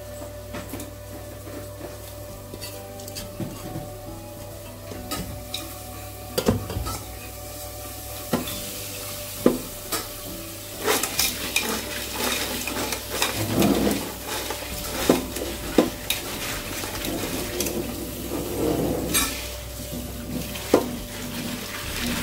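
Hands swishing and stirring crab pieces in water in an aluminium bowl, the shells rattling, with sharp knocks of the metal bowls against each other and the sink. The clatter grows busier and louder about halfway through.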